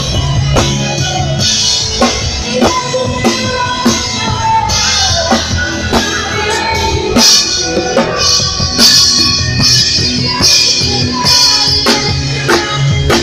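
Live band music led by a drum kit: a steady kick-and-snare beat with cymbal crashes several times, over other pitched instruments.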